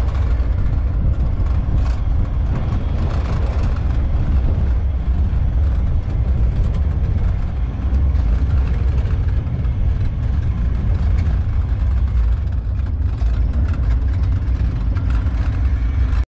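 A motor vehicle driving, with a steady low engine and road rumble throughout.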